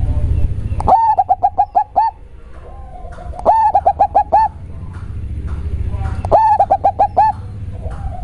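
Zebra dove (perkutut) cooing with a deep, bass voice: three phrases, each a longer opening note followed by a quick run of five or six short notes. A softer, lower, rapidly pulsing purr fills the gaps between phrases.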